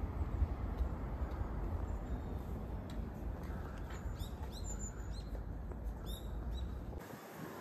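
Wind noise rumbling steadily on the microphone, with a few short, high bird chirps about halfway through.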